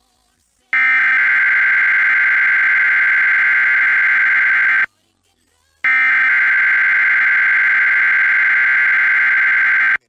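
Emergency Alert System SAME header data bursts from NOAA Weather Radio: a harsh, buzzing digital screech, two bursts of about four seconds each with a second of silence between them. They are the coded header announcing the hurricane warning and are sent before the alert tone.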